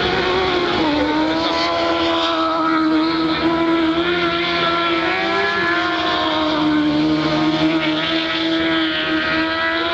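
Superbike racing motorcycles running at high revs through a corner, a steady high engine note that dips briefly about a second in and then holds.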